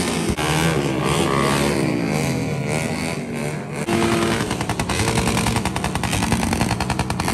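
Modified motorcycle engines revving, the pitch rising and falling for the first few seconds. After that comes a fast, unbroken string of sharp pops from the exhaust: rapid backfire.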